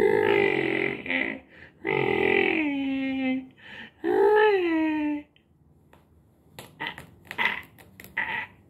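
A man making three drawn-out wordless vocal noises, the second and third sliding down in pitch, then a few short, quieter clicks near the end.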